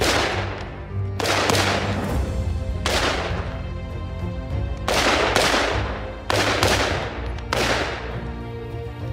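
Bushmaster ACR rifle fired in single shots, about seven at irregular intervals a second or two apart, each with a long echoing tail. Background music plays underneath.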